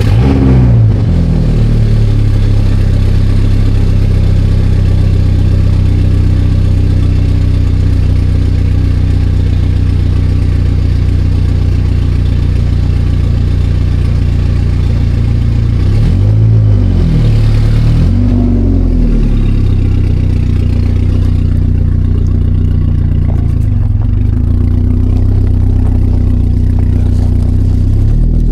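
Swapped-in Dodge SRT-4 turbocharged four-cylinder engine idling steadily just after a cold start, with two quick revs of the throttle, about sixteen and eighteen seconds in.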